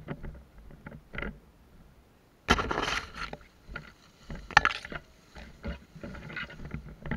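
Tall grass, reeds and brush swishing and scraping against a player and his body-mounted camera as he pushes through on foot, in irregular rustles. The loudest is a long scrape about two and a half seconds in, with another sharp brush a couple of seconds later.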